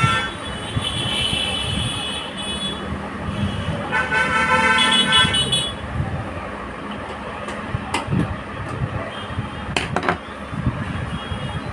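Vehicle horns honking twice, each lasting a second or two, about one and four seconds in, over a low rumble of traffic. A few sharp clicks follow near the end.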